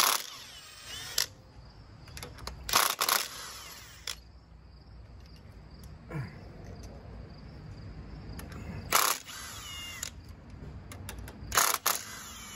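A cordless power tool whirs in about four short bursts, each a second or less with a quick rising and falling whine, as it backs out the rocker-arm bolts on a Jeep 4.0 inline-six cylinder head.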